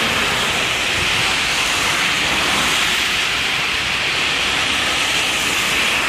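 A steady, even hiss of outdoor noise, with no distinct events standing out.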